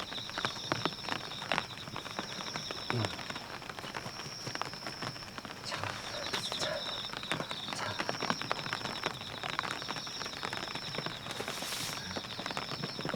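Rain falling, with scattered drops tapping sharply on a tent and an even patter behind them. A steady, high-pitched pulsing trill runs underneath.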